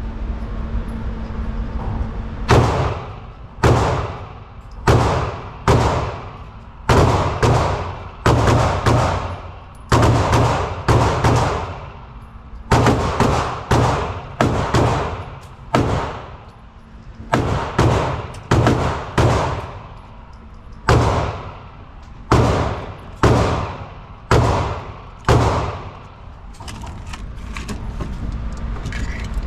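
A long string of handgun shots fired one after another, about one to two a second, each a sharp crack with a short ringing tail. The shooting starts a couple of seconds in and stops a few seconds before the end, leaving a steady low hum.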